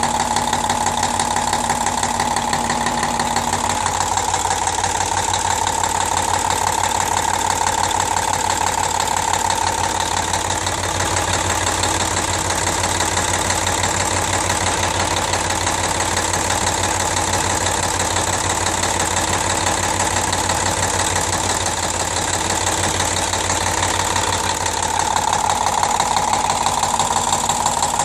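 YaMZ-236NE2 V6 turbodiesel idling with a knock, which the owner cannot yet place: a faulty injector or the high-pressure injection pump.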